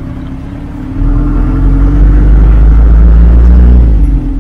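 Land Rover Series with a 14B diesel engine revving up under load about a second in, holding the revs for about three seconds, then easing back toward idle near the end.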